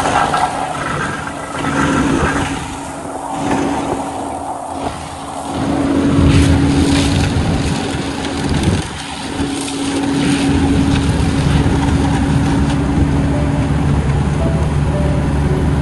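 Asphalt finisher (road paver) engine running with a steady hum, its loudness swelling and easing.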